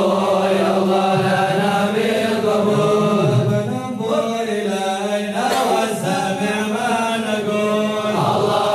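A large group of men chanting a devotional chant together in unison, the melody rising and falling over a held steady tone, a little softer for a couple of seconds midway.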